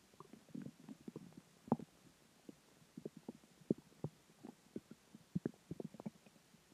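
Human stomach gurgling: a string of short, irregular pops and low bubbling rumbles as gas and water move through the gut after a meal.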